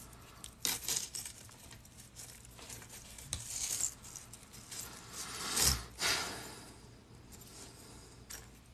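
Metal chainmail jump rings clinking and jangling as the woven cluster is handled and new rings are worked in, with scattered small clicks and a louder rattle with a low thump a little over halfway through.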